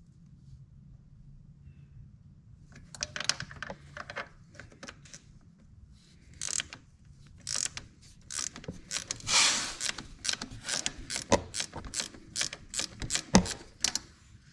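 Ratchet wrench clicking as a 10 mm nut is backed off. Quiet at first, then short runs of clicks from about three seconds in, becoming rapid and nearly continuous in the second half.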